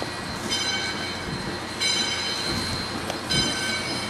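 Steam locomotive bell ringing, three strokes about a second and a half apart, over the low rumble of the 2-8-2 Mikado steam locomotive moving slowly: the bell warns that the engine is in motion.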